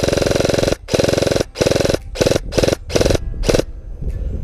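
G&G M4 Predator airsoft electric rifle firing on full auto: a long burst, a second long burst, then five short bursts in quick succession, its rapid mechanical cycling heard in each, ending about three and a half seconds in.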